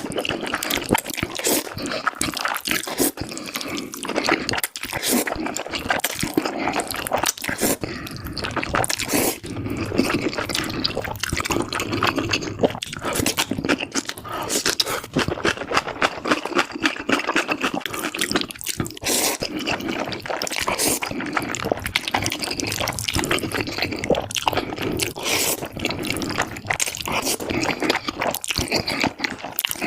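Wet slurping and chewing of saucy black bean noodles, a dense run of quick smacking clicks throughout.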